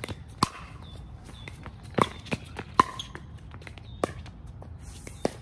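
Pickleball paddles striking a hard plastic pickleball in a rally at the net, with the ball bouncing on the hard court: about six sharp pocks at irregular intervals, three of them loudest.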